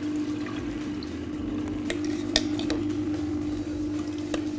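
Philips ice cream maker's motor humming steadily while sorbet mix is poured in from a metal jug. A metal spoon clinks a few times against the jug and bowl.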